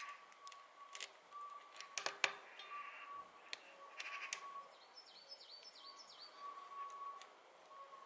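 Small metallic clicks and taps from a clamp and its bolt being fitted to a steel bicycle chainstay, the loudest about two seconds in. A bird chirps a quick run of about six short notes about five seconds in.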